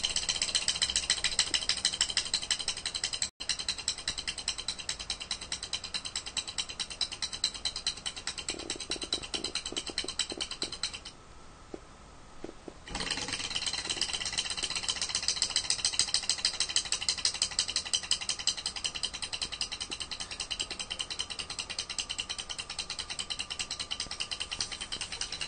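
Model thermoacoustic heat engine running under an alcohol flame: its piston, crank and aluminium flywheel make a fast, even mechanical clatter. The running sound drops away for about two seconds in the middle, when the flywheel is handled, then picks up again.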